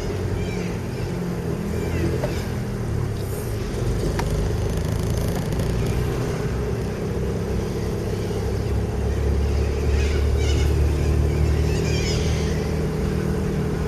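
Car engine and road rumble heard from inside the cabin while driving, a steady low drone that swells a little about two-thirds of the way through.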